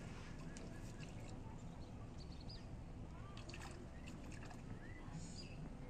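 A hand net being drawn through shallow pond water, with faint swishing and sloshing, under a steady low outdoor hum; a few short bird chirps come through about two and three seconds in and again near the end.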